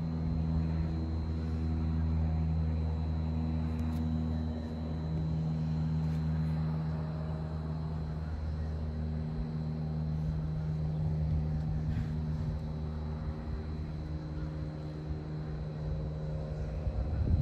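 A motor or engine drones steadily at a constant low pitch, with a thin, steady high whine above it.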